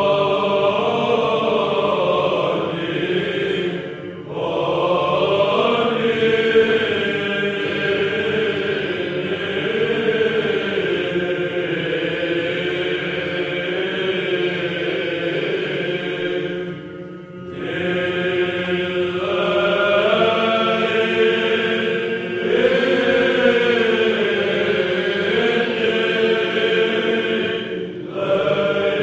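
Background music of chanting voices over a steady held low note, sung in long sustained phrases with short breaks a few seconds in, about midway and near the end.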